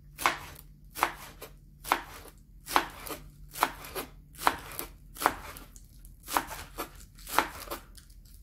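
Large kitchen knife chopping green onion leaves on a plastic cutting board: a steady series of sharp knocks of the blade on the board, about one a second.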